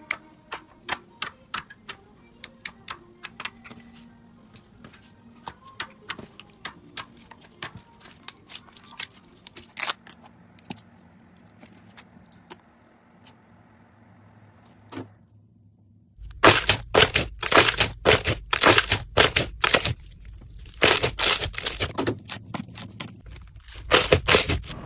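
Slime being pressed and worked by hand, giving scattered sharp clicks and pops. From about sixteen seconds in, the crackling turns much louder and denser, in bursts.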